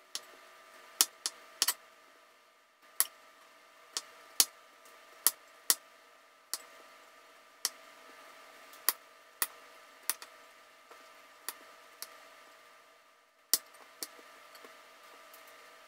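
Chef's knife knocking on a checkerboard wooden cutting board as it slices strips of peel off a sweet potato: sharp, short taps about once or twice a second at an uneven pace.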